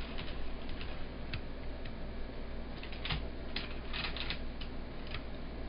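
Irregular small clicks and taps of a model train's locomotive and cars being handled on the track, with a cluster of quick clicks about three to four seconds in, over a steady low hum.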